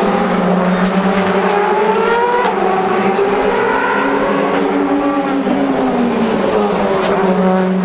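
Several DTM touring cars' 4-litre V8 engines running hard together through the curve, their notes overlapping, pitch climbing as they accelerate and one dropping away about two thirds of the way through.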